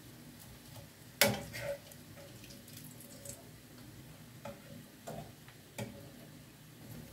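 Zucchini fritters frying in a pan of oil, with a sharp utensil knock against the pan about a second in that rings briefly, and a few lighter knocks later on.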